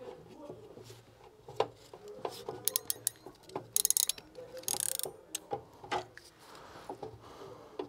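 Ratcheting hand tool clamping down on a 25 mm power cable: scattered pawl clicks, then a quick run of clicks just before the middle, followed by a short harsh rasp.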